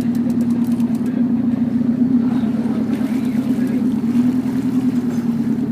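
Fishing boat's engine running steadily, an even low drone with no change in pitch.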